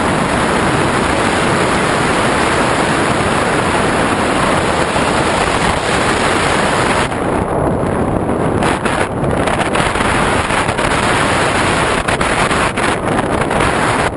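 Loud, steady rush of air over the onboard camera's microphone on an RC model aircraft in flight, with no motor tone to be heard. From about halfway, the hiss thins out in brief patches as the airflow over the microphone changes.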